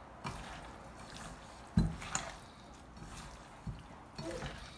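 Raw chicken pieces squelching wetly as seasoning is rubbed into them by hand in a stainless steel bowl, with a few short knocks, the loudest about two seconds in.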